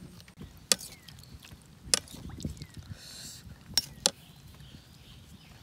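Eating sounds from a plate of papaya salad with shrimp: soft chewing and handling of the food, broken by four sharp clicks or crunches, the last two close together.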